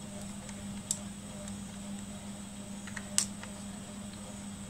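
Plastic multimeter test-lead probes being handled, giving a couple of small sharp clicks, the clearest about three seconds in, over a steady low hum.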